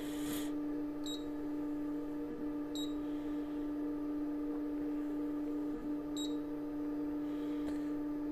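Resin 3D printer's Z-axis stepper motor humming steadily as it raises the build plate, with three short high beeps from the touchscreen as buttons are pressed.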